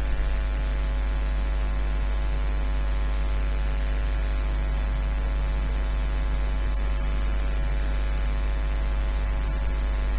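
Steady electrical mains hum with static hiss on the recording, unchanging throughout.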